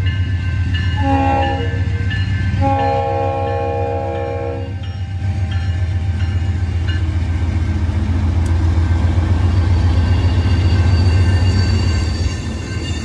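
Diesel locomotive's chord horn sounding for a grade crossing: a short blast about a second in, then a long blast of about two seconds. Afterwards the locomotive's diesel engine runs on with a steady low rumble that grows louder as it draws near.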